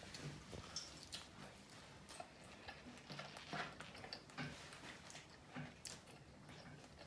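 Close-up eating sounds: someone chewing KFC fried chicken, with irregular small clicks and mouth smacks.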